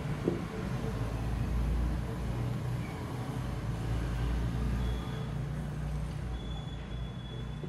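A steady low rumble in the background. Over it, the soft scraping of a silicone spatula folding thick cake batter in a stainless steel bowl.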